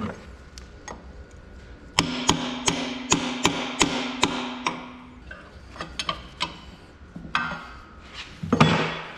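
Hammer blows, metal on metal, working a snug-fitting tractor front-axle differential loose from its housing: a quick run of about ten strikes with a ringing note under them, then scattered lighter taps and a louder clunk near the end.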